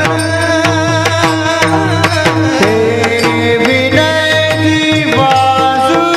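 Instrumental passage of Marathi devotional bhajan music: a melody line over steady hand-drum beats between sung verses.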